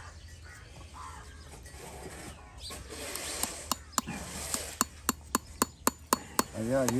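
Hammer driving nails through an iron horseshoe into a horse's hoof: quick, light metallic taps about four a second, starting about halfway through.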